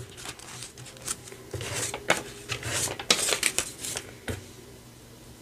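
Dollar bills and the plastic pockets of a ring binder being handled: soft rustling and crinkling with light taps, busiest in the middle and dying down near the end.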